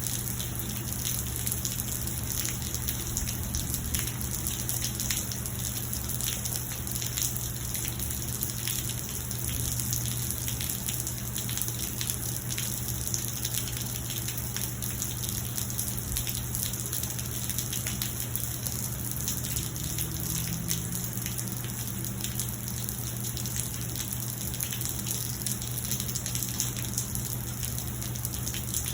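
Steady rain falling, with many separate drop ticks over a continuous wash of water noise and a steady low hum underneath.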